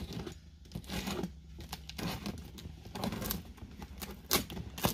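Utility knife slicing and ripping through layers of packing tape on a cardboard box: an uneven run of short scratchy cuts and tears, with a couple of sharper snaps near the end.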